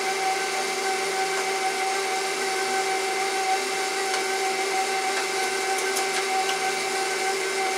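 Electric stand mixer running at a steady speed, its motor giving an even hum with a whine as it beats sugar cookie dough in a stainless steel bowl.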